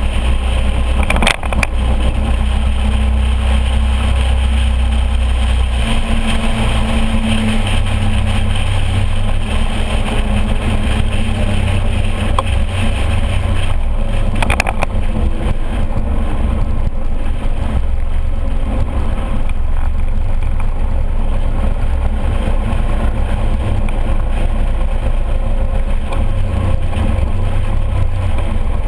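A scooter under way, heard from a camera mounted on it: a steady engine drone with wind and road noise. The engine note shifts a few times as the speed changes.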